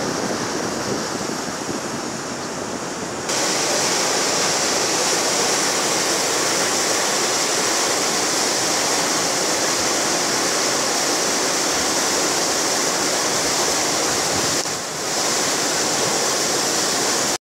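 A wadi in flash flood: fast, muddy floodwater rushing in a steady, loud roar. The roar comes in suddenly about three seconds in, after a quieter stretch of steady noise, and is briefly cut off near the end.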